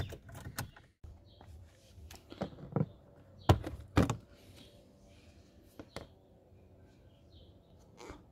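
Plastic fuse box cover under the dashboard of a 2016 Dacia Duster being unclipped and pulled off by hand: a series of sharp plastic clicks and knocks, the loudest two about three and a half and four seconds in, with a few lighter clicks later.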